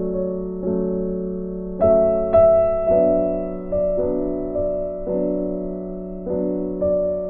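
Background music: slow, gentle electric piano chords, a new chord struck about once a second and left to fade.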